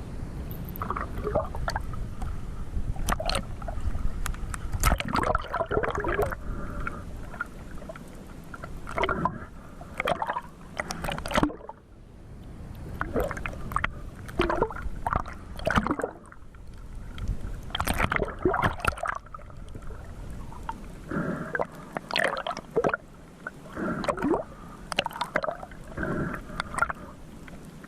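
Water sloshing and gurgling, with irregular splashes and knocks.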